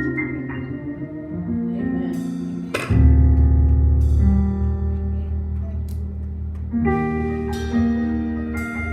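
Instrumental music: sustained chords that change every second or two, a deep bass note coming in about three seconds in, and a few sharp struck accents.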